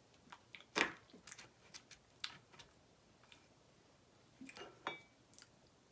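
Scattered soft clicks and taps of cheesecake being eaten close to the microphone. The sharpest comes a little under a second in, with a small cluster near the end.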